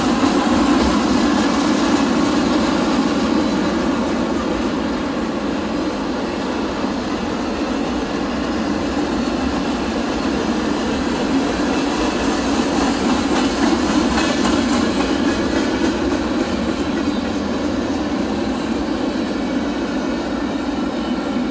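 Freight cars of a CSX train rolling past close by: steel wheels running over the rails in a steady, continuous noise.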